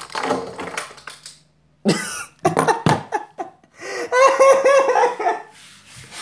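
A person coughing, then laughing in a quick run of short bursts about two-thirds of the way through.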